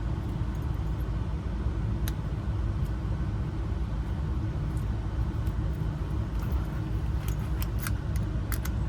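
Steady low rumble throughout, with keys and small metal lock parts clicking and jingling in quick, sharp taps over the last two seconds.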